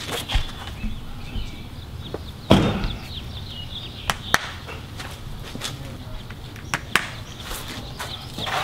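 Hammer tapping nails into the pre-punched holes of a plastic weather-strip trim: several sharp knocks at uneven intervals, the loudest about two and a half seconds in.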